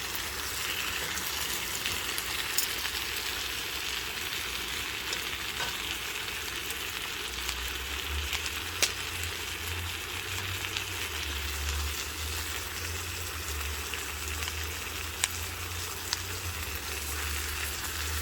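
Dakgalbi (spicy chicken stir-fry) sizzling steadily in a hot pan, with scattered sharp pops. A low rumble comes in about halfway through.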